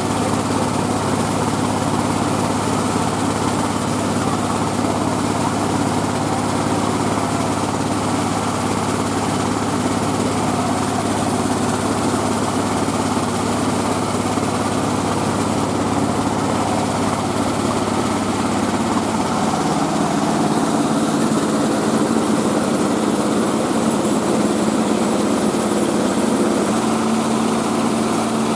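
Mobile rice-milling machine running steadily, its engine and milling machinery making a continuous mechanical drone. About two-thirds of the way through, the low hum drops away and the pitch of the running changes.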